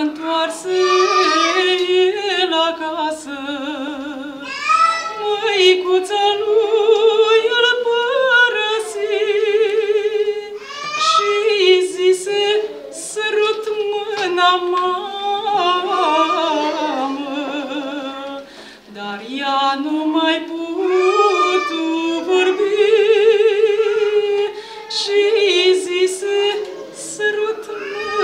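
A woman singing a Romanian Orthodox pricesnă, a devotional song, as a solo voice with a wide vibrato on held notes, phrase after phrase.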